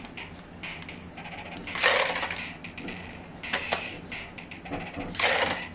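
A Bop It Extreme electronic toy being tried out: its plastic controls are clicked and twisted, and two short, loud noisy bursts from the toy come about two seconds in and again near the end. The toy's sound is tinny and doesn't sound great.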